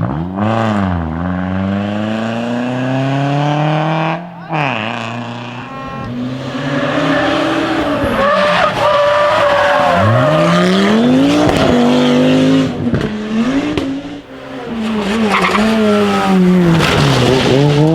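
Rally cars driven hard: the engine note climbs and drops again and again as the car revs through its gear changes. The note breaks off about four seconds in and again near fifteen seconds, and starts over on another car.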